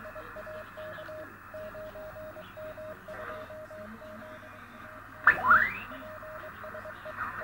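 Morse code (CW) signal on the 10-metre amateur band received over a shortwave radio: a single steady tone keyed in dots and dashes over constant band hiss. About five seconds in, a brief loud whistle sweeps upward in pitch.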